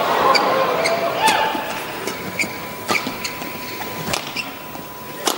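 Badminton rally: sharp racket strikes on the shuttlecock about every second, with crowd voices murmuring and calling out, louder at the start and settling down.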